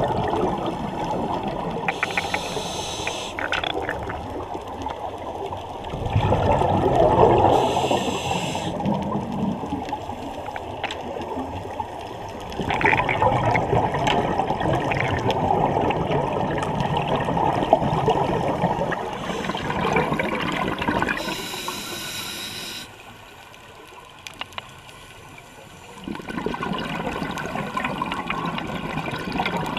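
Scuba regulator breathing heard underwater: a short, high hiss of inhalation three times, each followed by a long rush of exhaust bubbles.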